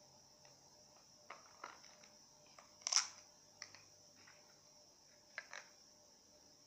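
Faint handling noises: a scattering of light clicks and knocks as things are picked up and moved, with one sharper knock about three seconds in, over a steady faint hiss.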